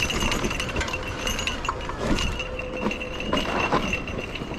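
Mountain bike rattling down a rough dirt trail: chain and parts clinking and knocking over the bumps, with tyre noise on the dirt and a steady high whine underneath.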